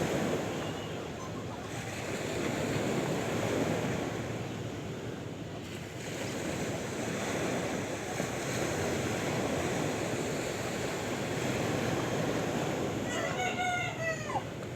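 Sea waves washing in a continuous, gently swelling surge. Near the end, a single animal call of about a second and a half, its pitch bending downward as it ends.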